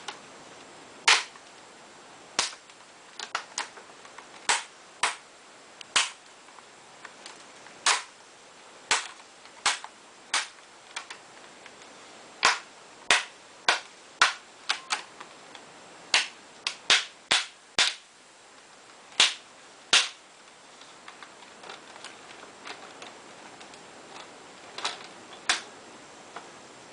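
Plastic retaining clips of a Samsung NP300E5C laptop's screen bezel snapping loose one after another as the frame is pried off: a couple of dozen sharp, irregular clicks, with a pause of a few seconds near the end.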